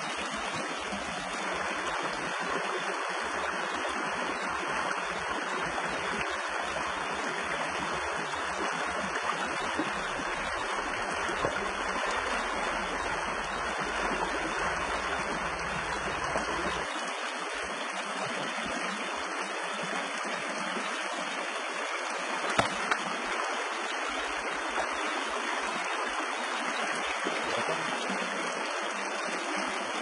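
Shallow stream water running steadily, with a couple of brief knocks partway through.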